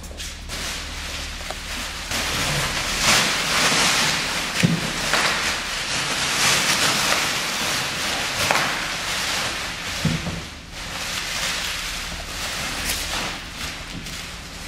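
Plastic bubble wrap crinkling and rustling as it is pulled off a large roll and stuffed into a cardboard TV box, with a few dull knocks against the cardboard.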